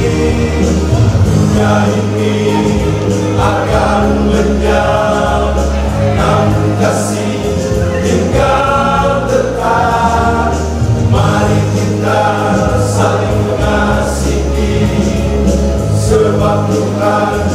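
Church choir singing a gospel song in parts, with long held low notes underneath.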